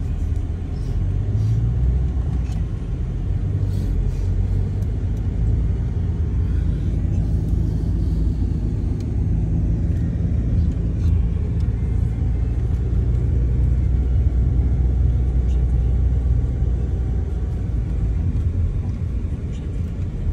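Car driving along a winding road, heard inside the cabin: a steady low rumble of engine and tyres.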